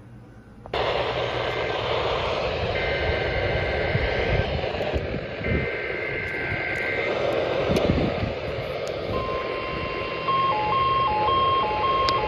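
A sudden loud hiss of radio static with short steady electronic tones sounding over it. About nine seconds in, a steady tone near 1 kHz comes in and then starts switching between two pitches.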